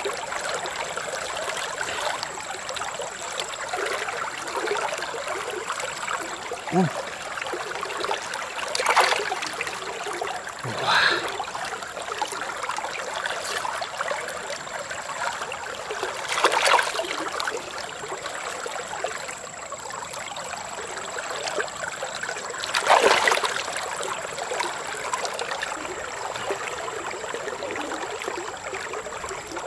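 Shallow river running steadily, with a few short, louder splashes of water spread through the stretch.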